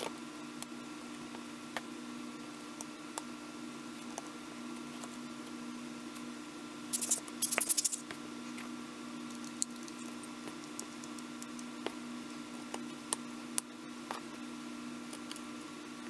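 Small clicks, taps and scratches of metal and plastic parts as the stripped-down body of a Canon PowerShot SX730 HS compact camera is handled and turned over, with a cluster of scratchy clicks about seven seconds in. A steady low hum runs underneath.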